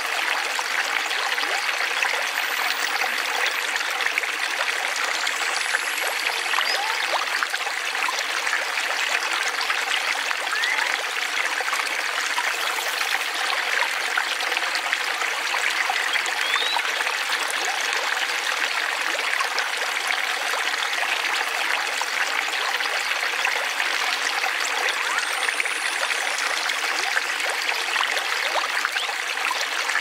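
Steady trickling and splashing of water running down the stone steps of a pondless garden waterfall into a shallow rocky stream.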